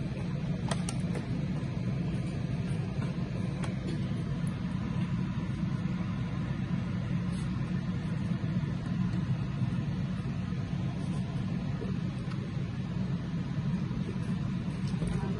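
Steady low rumble, even in level throughout, with no distinct knocks or other events standing out.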